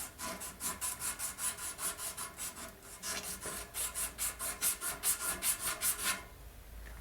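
Sandpaper rubbed back and forth by hand over a 50-year-old part, in quick even strokes of about four or five a second, stopping abruptly about six seconds in; the old surface is being cleaned off so the part will come apart.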